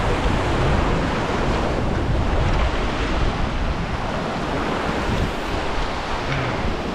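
Ocean surf washing on coastal rocks, with wind buffeting the microphone: a steady rush of noise with a low rumble.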